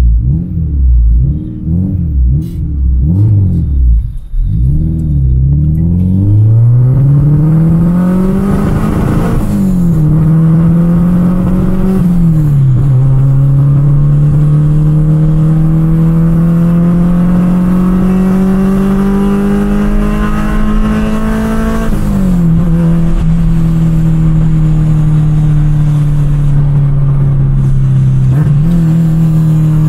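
Honda Integra DC2 four-cylinder engine and exhaust heard from inside the cabin while driving. After an uneven low rumble, the engine note climbs under acceleration and drops at two quick upshifts. It then rises slowly for a long stretch, drops once more and settles into a steady drone.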